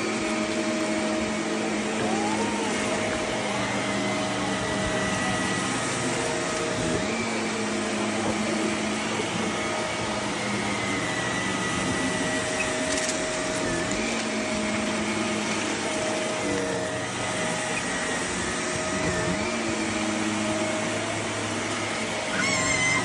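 Vacuum cleaner running over carpet that has gone a month without vacuuming, picking up crunchy debris. The motor's hum is steady and dips briefly in pitch every few seconds as it is pushed. A short high chirping sound comes near the end.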